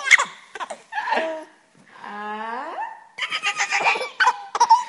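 Baby laughing hard in fits of rapid, breathy giggles. In the middle, between two fits, comes one long drawn-out voice sound that rises in pitch at its end.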